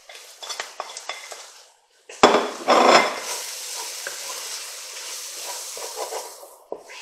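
Wooden spoon stirring and scraping sautéed onion, celery and bell pepper with spices in a hot pot. At first there are light knocks against the pot. About two seconds in comes a louder scrape and sizzle, which settles into a steady sizzle and stops shortly before the end.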